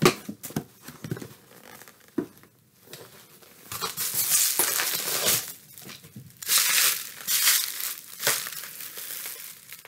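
Plastic packaging crinkling and tearing as an item is unwrapped by hand: a few light clicks at first, then three spells of crinkling from about four seconds in.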